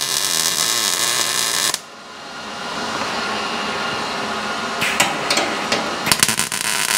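MIG welder plug-welding the drilled holes in a new steel quarter panel: the arc crackles for about the first two seconds and again from about six seconds in. Between the two welds there is a softer steady hiss and a few sharp clicks.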